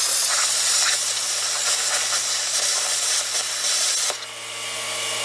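Plasma cutter cutting through a truck's steel cross member: a loud, steady hiss of the arc and air, which drops to a quieter hiss about four seconds in.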